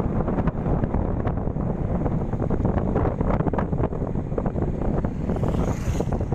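Wind buffeting the microphone on a moving scooter: a steady low rumble with scattered rustles.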